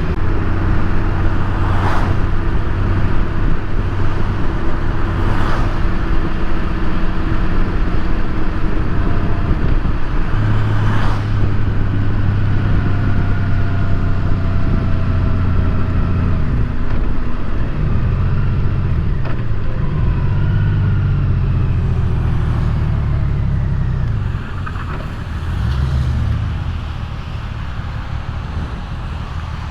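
A 2018 Honda Gold Wing's flat-six engine running under steady wind and road noise while riding. In the second half the engine note rises and falls, and the overall noise drops near the end.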